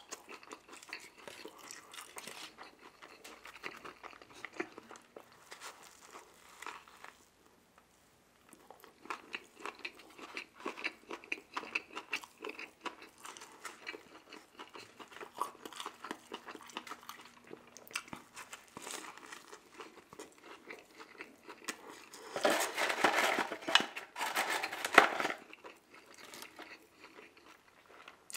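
Close-miked chewing and biting of McDonald's food (Big Mac, chicken nuggets and fries), full of small crunches and clicks. It dips briefly about a quarter of the way in and is loudest for a few seconds about three-quarters of the way through.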